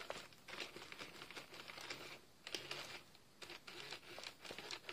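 Faint whirring and clicking of a Furby Boom's internal motor and gears as it moves, in short spurts with brief gaps. There is no voice from the toy: its speaker is dead, so it moves but is mute.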